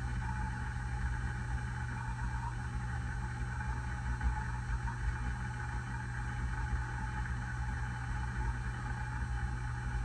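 Hunter low-profile ceiling fan running steadily: a constant low motor hum under an even rush of air from the spinning blades.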